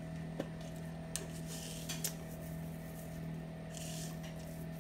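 Dried parsley shaken from a plastic spice jar into a pot, a soft brief rustle about four seconds in, over a faint steady hum and a few light clicks of jar handling.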